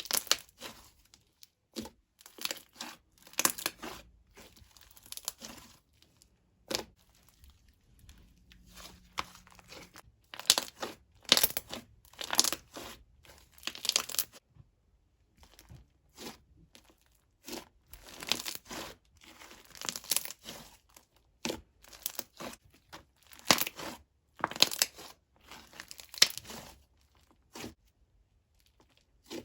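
Hands squishing, stretching and poking slime, making irregular bursts of crackly, clicking and popping sounds with short pauses between.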